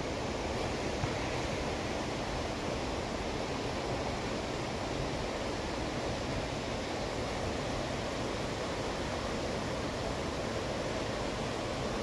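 Steady rushing of a waterfall, an even unbroken noise.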